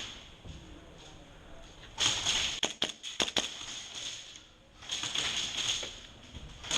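Airsoft guns firing: a quick run of about five sharp cracks some two and a half seconds in, amid bursts of rustling noise.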